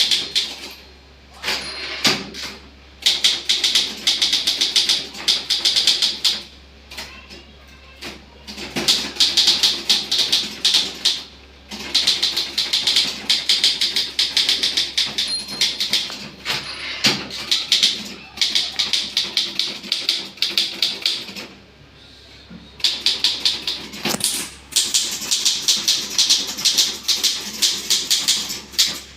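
Manual typewriter being typed on at high speed: a rapid stream of typebar strikes in long runs, broken by a few short pauses.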